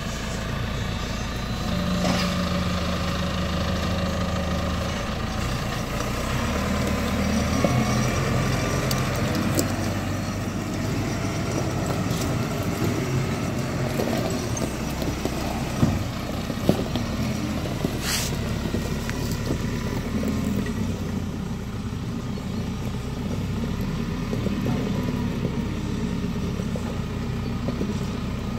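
A JCB 535-140 telehandler's diesel engine running steadily as the machine drives, its pitch rising and falling a little with the throttle. There are two short knocks about halfway through.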